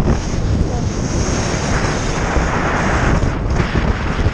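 Extreme wind blast buffeting a GoPro Hero4 Session's microphone: loud, rumbling wind noise with a short lull in the hiss about three and a half seconds in.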